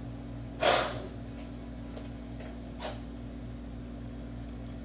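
A spoon clanks and scrapes against a large cooking pot a little over half a second in, with a fainter knock near three seconds, as chili is scooped out to taste. Under it runs a steady low electrical hum.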